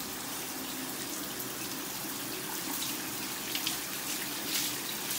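Steady running water from a handheld shower head splashing over a dog's coat in a small tiled shower, with a few louder splashes about three to four seconds in.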